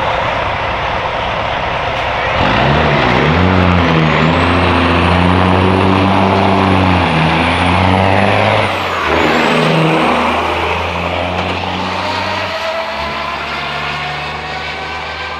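Diesel semi truck's engine running hard as the truck passes close by. A high turbo whistle and the engine note drop in pitch as it goes past, then the engine carries on more steadily and slowly fades.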